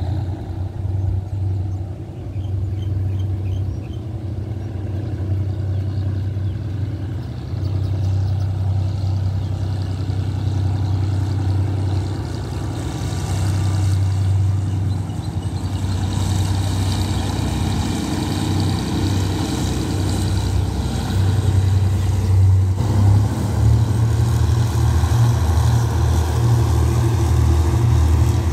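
GE diesel-electric locomotive 4048 running as it hauls a passenger train past. A steady, pulsing low engine drone grows louder toward the end, with wheel-on-rail noise coming in from about halfway.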